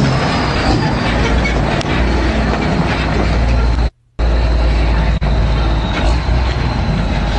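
Heavy diesel truck engine, a Cummins N14, running loud under load as the truck pulls past close by. There is a deep steady rumble with a thin high whistle above it, and a brief dropout about four seconds in.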